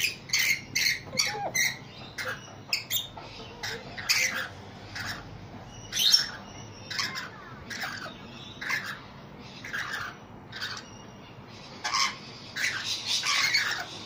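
Rainbow lorikeets calling in a rapid, irregular series of short, high-pitched calls as they feed, with a louder, denser run of calls near the end.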